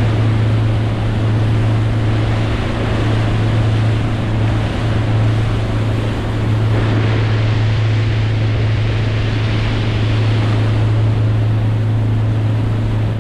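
Motorboat engine running steadily at speed, a constant low drone under rushing water and wind noise.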